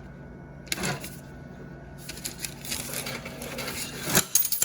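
Cash being paid out at a counter: a run of rapid clicks and clatter, with a few sharp clacks near the end.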